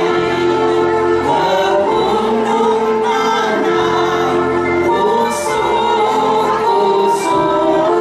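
A mixed group of men's and women's voices singing an Indonesian song together through microphones, with instrumental accompaniment and a steady bass line.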